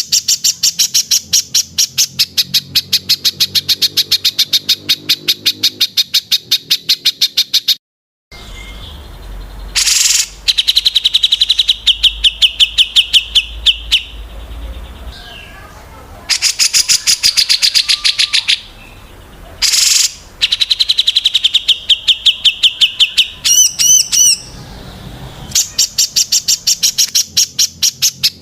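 Calls of small songbirds: fast trills of sharp, evenly repeated notes in several separate runs, with abrupt cuts between them and a brief dropout near eight seconds. A short run of quick up-and-down whistled notes comes near twenty-four seconds.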